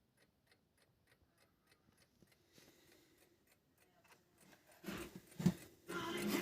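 Rapid, even clicking at about four clicks a second. From about two and a half seconds in a faint hiss comes up. From about five seconds in, the Telefunken TF-158 clock radio's broadcast sound comes on loud.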